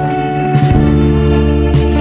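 Music playing: a slow song with sustained chords over a bass line.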